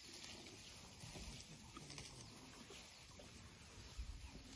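Faint rustling and tearing of grass from African elephants feeding and shuffling through tall grass close by, with a few soft low thumps.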